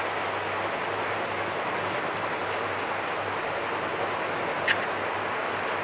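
Steady background hiss with a faint low hum, with one short light click about three-quarters of the way through.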